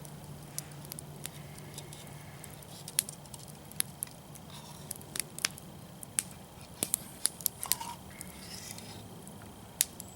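Wood fire crackling: irregular sharp pops, about one or two a second, over a faint steady low hum.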